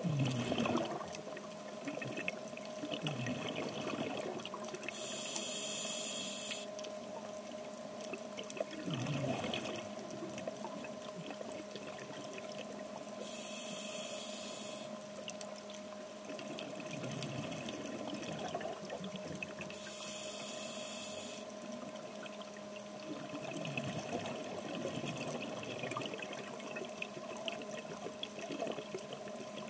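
Scuba diver breathing through a regulator underwater: three bursts of exhaled bubbles about seven seconds apart, with softer breathing sounds between them. A steady faint hum runs underneath.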